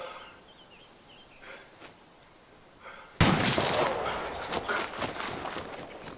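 A single loud gunshot about three seconds in, a sharp crack that trails off in a long echo, followed by scattered rustles and knocks in the dry forest undergrowth.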